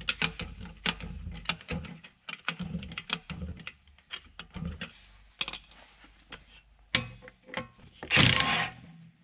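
Hand tools clicking and tapping on metal while the bolts are loosened through the bevel gearbox inspection hole. The clicks come in quick runs for the first two seconds, then thin out. About eight seconds in there is one loud, brief scraping rustle.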